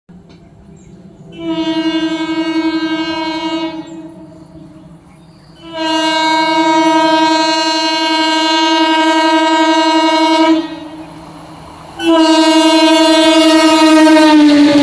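Indian Railways EMU local train's horn sounding three blasts: a short one, a longer one, then a third that drops slightly in pitch near the end as the rumble of the passing train rises.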